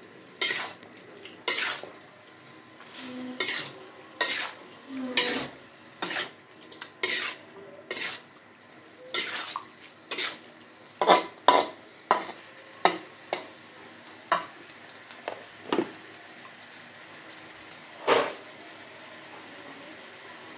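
Metal spatula scraping and knocking against a wok while stirring a saucy stir-fry, with a faint sizzle underneath. The strokes come about once a second, thin out and stop about sixteen seconds in, with one last scrape near the end.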